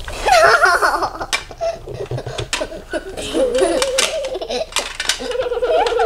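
Children giggling and laughing in fits, with a long, wavering vocal sound held near the end.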